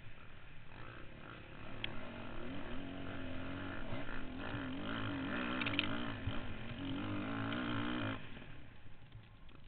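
Dirt bike engine pulling hard under throttle on a steep uphill climb, its note wavering up and down, then dropping away sharply near the end as the throttle is closed.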